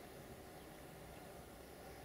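Near silence: faint outdoor background hiss with a low rumble.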